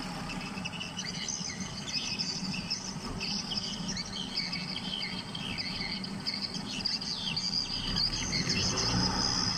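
Insects and birds calling together: many short, high chirps and trills overlapping without a break.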